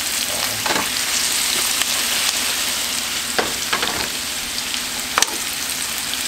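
Potato wedges sizzling in hot oil in a frying pan, a steady hiss, with a few short scrapes and clicks from a spoon stirring them.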